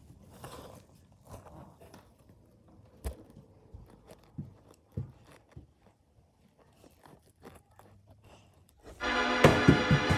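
Faint scattered clicks and knocks, then about nine seconds in a loud held organ chord starts suddenly, with a few knocks over it, and lasts about two seconds.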